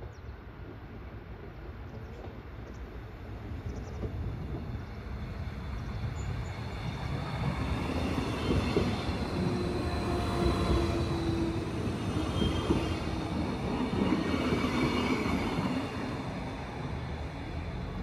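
A train passing close by, growing louder over the first eight or nine seconds, staying loud for about seven seconds, then dropping off a little near the end. A few steady tones ring over the rumble while it is loudest.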